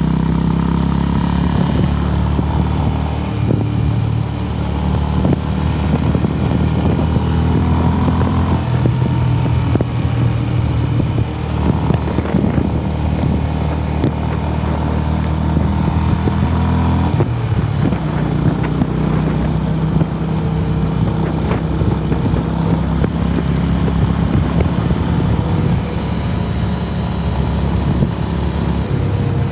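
Honda CB350RS's single-cylinder engine running steadily as the motorcycle is ridden, with occasional knocks. The engine note changes about two-thirds of the way through.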